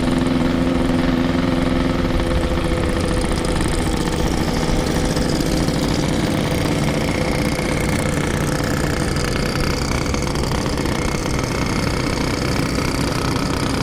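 Yamaha RX-King's 135 cc two-stroke single-cylinder engine running at a steady pace while riding. Its note is clear for the first couple of seconds, then blends into a steady rush of wind and road noise.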